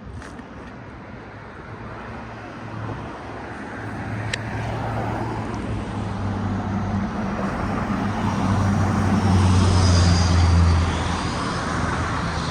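Road traffic: a motor vehicle's engine hum and tyre noise building as it comes close, loudest about ten seconds in, then easing a little.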